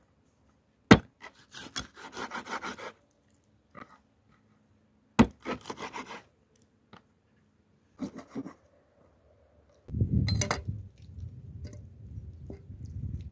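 Meat cleaver chopping raw chicken wings on a wooden cutting board: a sharp chop about a second in and another about five seconds in, each followed by a quick run of short cutting and scraping strokes against the board. Near the end a low rumbling noise comes in under the cutting sounds.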